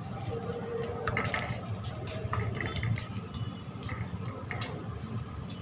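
A wet hand patting and smoothing water over a rice bhakri on a hot tawa: wet smearing with a few soft taps.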